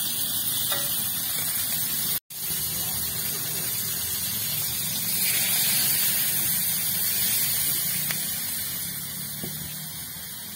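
Blue crabs sizzling in hot oil and seasoning in a wok. About five seconds in, water poured into the hot pan makes the sizzle swell into a louder hiss of steam, which then dies down. There is a brief break in the sound about two seconds in.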